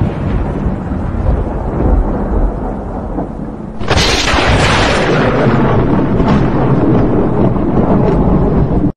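Thunder rumbling, with a sudden loud clap about four seconds in that rolls on into a long, slowly fading rumble.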